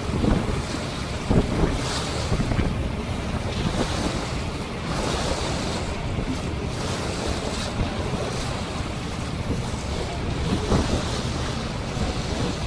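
Wind buffeting the microphone in gusts over the steady wash of choppy water past a moving boat.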